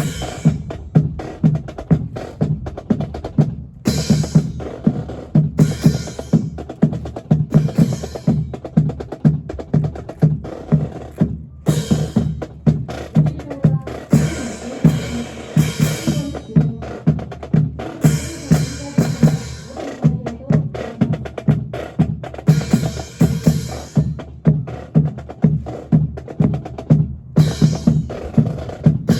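Drum corps percussion playing a steady drum cadence, snare and bass drums struck several times a second, with bright crashes breaking in every few seconds.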